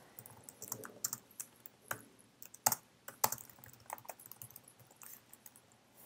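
Typing on a computer keyboard: irregular keystroke clicks, a few of them louder than the rest.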